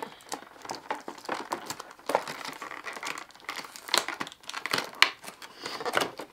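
Packaging crinkling and rustling in quick, irregular crackles with a few sharper snaps as the parts of a boxed figurine are unwrapped by hand.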